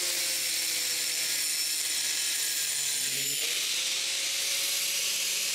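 Power saw cutting concrete block: a steady, hissing grind that holds level throughout, with a faint motor whine drifting slowly in pitch underneath.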